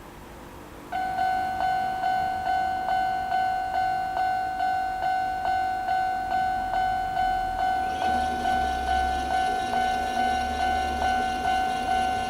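Japanese railway level-crossing warning sounder, the older standard electronic tone, starting about a second in and ringing a steady 'kan-kan' note re-struck about twice a second. About eight seconds in, a lower hum and rumble join it.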